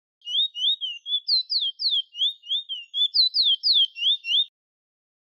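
Chestnut-bellied seed finch (Trinidad 'bullfinch', Guyana 'towa towa') singing: a fast run of about sixteen clear, high whistled notes, each a quick slur up or down, lasting about four seconds and then stopping.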